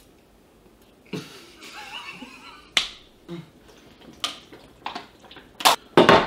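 Handling noise: plastic water bottles crinkling and clicking as two people drink from them, in a run of short sharp clicks. Two louder knocks come near the end as a hand comes down on a wooden board on a table.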